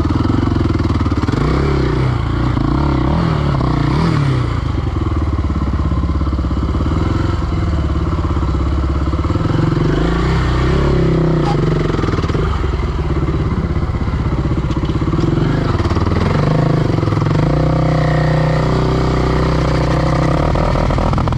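KTM 525 XC quad's single-cylinder four-stroke engine running under load off-road, revving up and down with the throttle.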